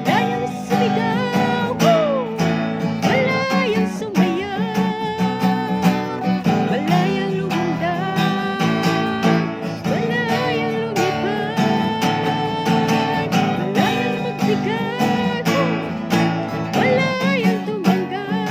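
Background music: a song with acoustic guitar strumming under a singing voice.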